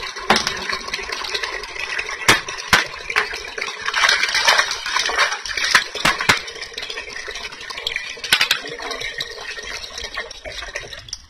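Water running from a tap into a plastic bucket, with several sharp clicks and knocks, while small freshly caught fish are washed and stirred by hand in a woven bamboo basket.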